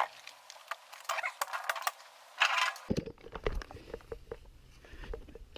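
Handling noise: scattered light clicks and rattles with a few short rustling bursts, and a low rumble in the background from about three seconds in.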